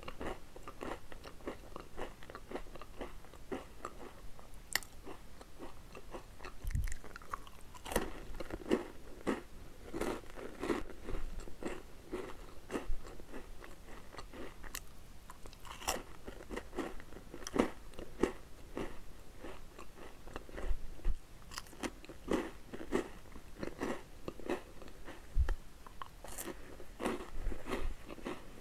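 Close-miked eating of crunchy chocolate snacks: crisp bites and crunches, then steady chewing with many sharp crackly crunches, including a crunchy chocolate cereal ring bitten around the middle.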